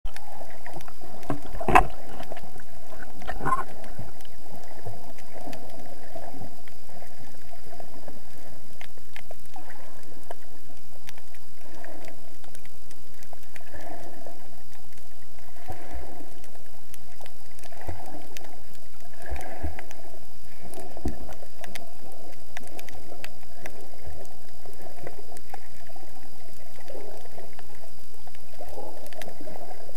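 Muffled underwater sound heard through an action camera's waterproof housing: a dull swishing that swells and fades roughly every two seconds, with two sharp knocks on the housing near the start.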